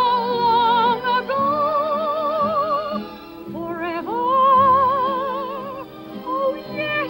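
A female soprano voice singing long held notes with a wide vibrato, in a Broadway show song with men's barbershop close harmony held underneath. The voice breaks off briefly about three and a half seconds in, then slides up into another long note.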